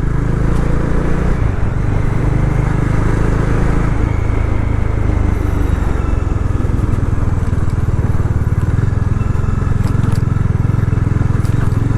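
Bajaj Dominar 400's single-cylinder engine running steadily under way, its note shifting about four seconds in. The owner suspects an exhaust gas leak where the engine joins the silencer, giving an annoying 'farr' noise while riding.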